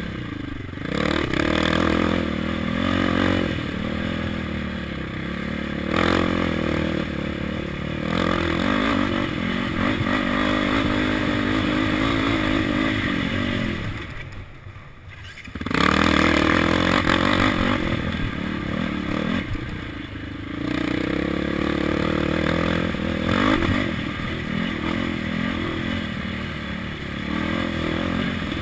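KTM 525 quad's single-cylinder four-stroke engine revving up and down with the throttle, with rattling and scraping from the machine over the bumps. About fourteen seconds in, the throttle is shut and the engine drops low for about a second, then picks up hard again.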